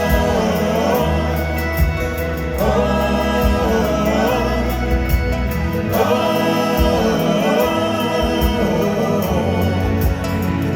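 Live country-rock band playing with several voices singing a long, wordless "oh" refrain.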